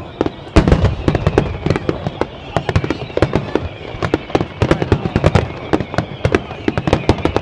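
Fireworks finale barrage: a rapid, dense string of shell bursts with many sharp bangs overlapping, strongest about half a second in and again around five seconds in.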